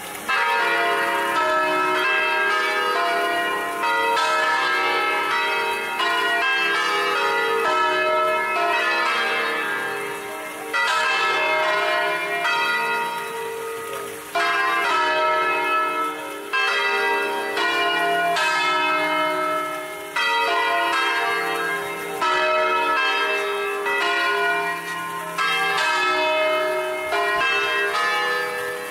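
Five-bell church peal in E-flat major, the bronze bells swung full-circle on wheels and rung through the traditional scale sequences as a solemn festive peal. The strokes come quickly and ring into one another in a steady repeating round.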